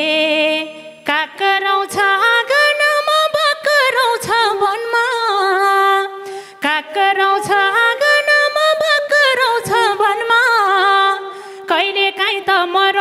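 A woman sings a slow, ornamented Nepali dohori folk line with no instruments heard. The line moves in phrases with a wavering vibrato and short breaths between them.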